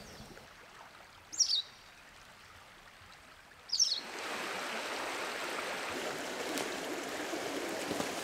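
Two short, high bird chirps in near quiet, then, about halfway through, a sudden switch to the steady rush of a flowing river at a wading ford.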